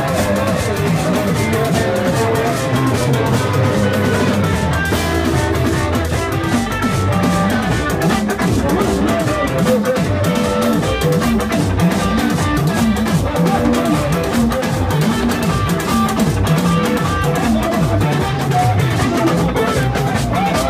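Live band music: guitar playing over drums and a moving bass line.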